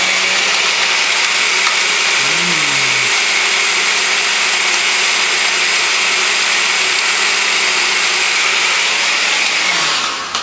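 Countertop blender running steadily at speed, pureeing a mixture of yogurt, bagel and chocolate milk, then switching off near the end.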